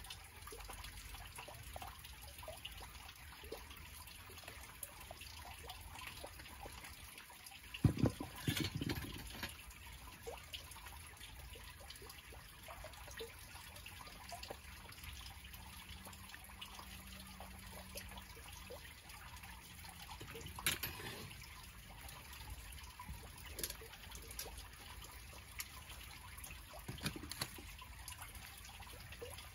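Molten aluminium being poured from a crucible into a petrobond oil-bonded sand mould and an ingot mould, with a faint steady trickling hiss throughout. A few sharp knocks of metal tools cut through it, the loudest cluster about eight seconds in and smaller ones later.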